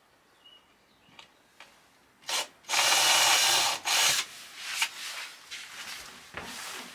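Cordless drill boring a guide hole through 12 mm plywood flooring: a short blip about two seconds in, then about a second of steady drilling and a brief last burst.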